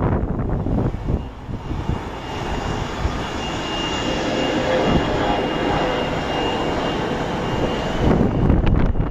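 A Bombardier CRJ-200's twin GE CF34 turbofans at takeoff thrust as the jet lifts off and climbs: a steady jet noise with a high, thin whine running through it. Gusts of wind buffet the microphone at the start and again near the end.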